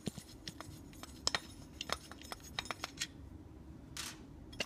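Irregular light clicks and clinks of small tail light parts being handled as a bracket is taken off, with a short rustle near the end.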